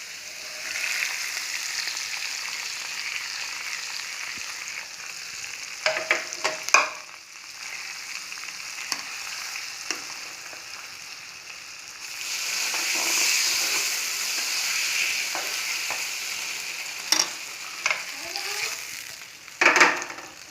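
Hot ghee-and-oil tempering of pepper, cumin, cashews and curry leaves sizzling as it meets the cooked rice-and-lentil pongal, while a spoon stirs it through. The sizzle swells again about twelve seconds in, and the spoon knocks sharply against the pot a few times.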